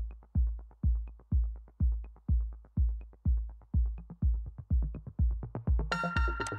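Electronic background music: a deep kick drum about twice a second, with a crash and fuller synth layers coming in near the end.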